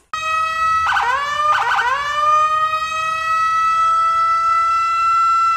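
Electronic police siren: two short rising whoops about a second in, then a long steady tone.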